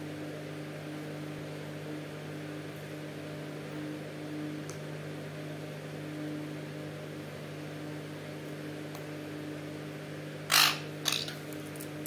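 Steady electrical hum, broken near the end by two short, loud, harsh squawks from young parakeets.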